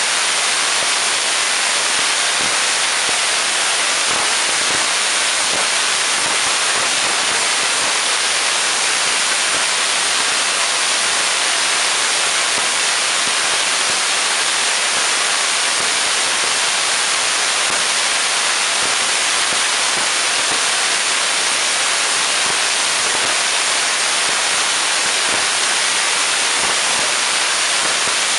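A 6-inch spark gap Tesla coil, powered by two 12,000 V 60 mA transformers, running continuously, its purple streamers arcing off the breakout point atop the toroid. A loud, dense, steady crackling hiss of sparks with no breaks.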